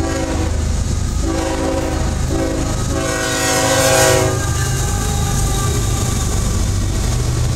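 CSX freight locomotive's air horn sounding separate blasts: a brief one, a long one, a short one and a final long blast that is loudest as the lead locomotive passes about four seconds in, the pattern of a grade-crossing warning. After that comes the steady low rumble of the diesel locomotives and the freight cars rolling by.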